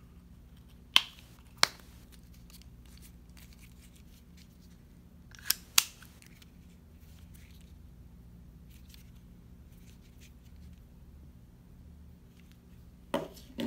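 Plastic Ford smart key fob case being snapped back together: two sharp clicks about a second in and two more near six seconds, with faint handling ticks between. A lower knock and a click come near the end.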